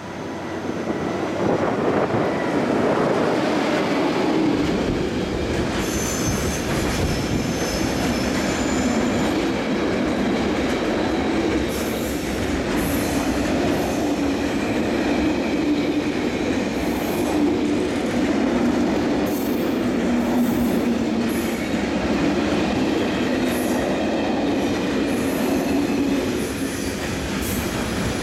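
DB Schenker class 6400 diesel locomotive passing close with a container train, followed by the container wagons rumbling by. A high wheel squeal comes about six seconds in, and sharp wheel clicks over the rails run through the second half.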